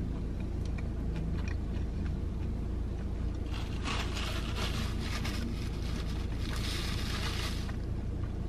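Paper food wrapper being crumpled and crinkled in a hand: a dense crackling rustle that starts a few seconds in and lasts about four seconds. A steady low car-cabin hum runs underneath.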